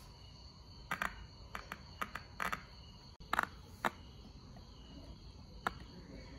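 Irregular small clicks and ticks as multimeter probes touch and scrape the solder tabs of a small Aiwa loudspeaker, most of them in the first four seconds. A faint steady high whine runs underneath.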